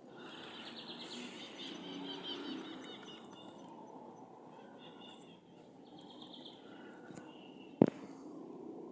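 Forest ambience: small birds chirping in quick high bursts over a steady low background noise, with one sharp click near the end.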